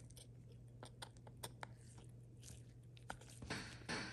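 Faint small clicks and ticks of a precision screwdriver bit seating on and turning the tiny shield screws inside an opened iPhone 11 Pro, with short scraping rustles about three and a half and four seconds in.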